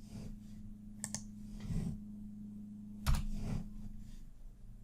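A few scattered computer keyboard keystrokes, about a second in and again around three seconds in, over a low steady hum.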